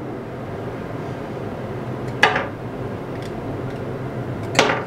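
Two sharp metallic clinks, about two seconds in and near the end, each ringing briefly, as the aluminum jig-head casting mold is opened and handled. A steady hum runs underneath.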